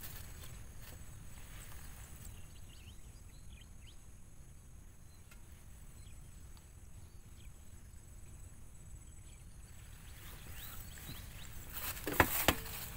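Steady high-pitched insect chirring over a grassy outdoor background, with rustling and a couple of sharp knocks near the end.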